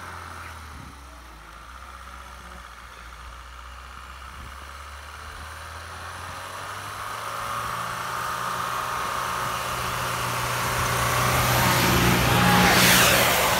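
Mahindra Thar's engine idling steadily, growing louder through the second half, with a brief rush of noise near the end.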